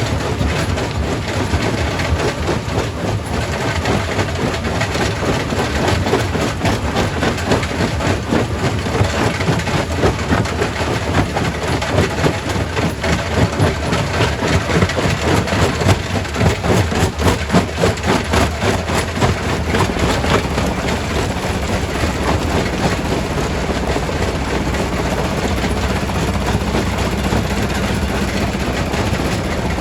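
Primary rock crusher running, with rock crunching and cracking in a dense clatter of knocks, busiest around the middle. Toward the end the clatter eases and a steady low machine hum and drone come forward.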